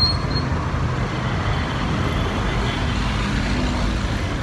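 Steady noise of busy road traffic, vehicle engines and tyres running past, with a low rumble underneath.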